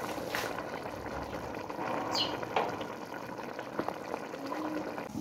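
Thick green banana stew in tomato sauce bubbling steadily in an aluminium pot, a continuous soft popping and burbling of bubbles breaking at the surface.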